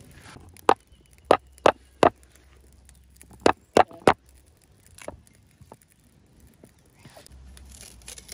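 Knife chopping a green citrus fruit on a wooden stump chopping block: sharp chops, four in the first two seconds, three quick ones about three and a half seconds in, and one more about five seconds in.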